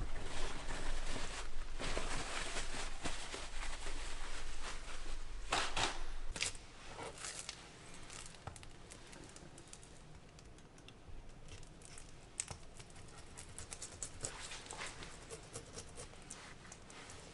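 A paper towel crinkles as a fish is patted dry, with a few sharper rustles about six seconds in. After that comes a quieter run of small, quick scraping ticks as a knife blade is drawn over a tautog's skin to scale it.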